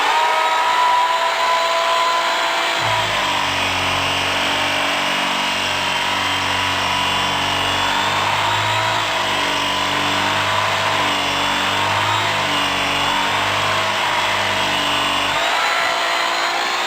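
Power-tool sound effect: a steady motor whine whose pitch wavers up and down, joined about three seconds in by a low drone that drops out briefly near the end.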